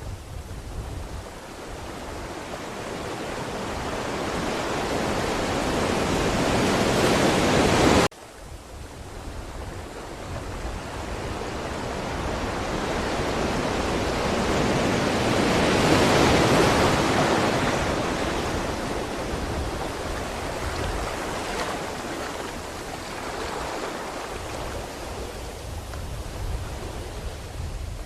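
Ocean surf, waves rolling in and washing up in long surges. One surge builds for several seconds and then cuts off suddenly about eight seconds in. Another swells to a peak about halfway through and slowly subsides.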